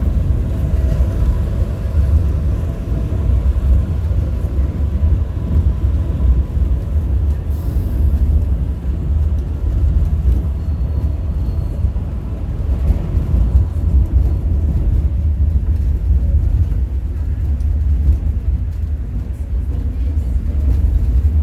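Steady low rumble of the Mount Washington Cog Railway train descending the mountain.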